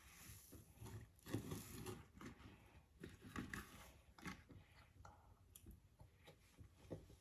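Faint chewing and mouth sounds of someone eating hard-boiled egg, with a few soft clicks.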